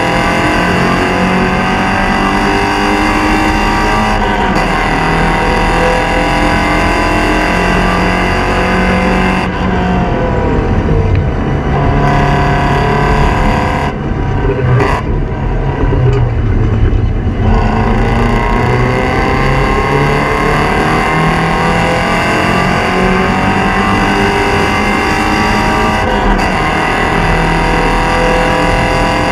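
Porsche 944 Spec race car's four-cylinder engine under hard acceleration, its pitch climbing and dropping back at each gear change. About ten seconds in it eases off for several seconds, then climbs again under full throttle.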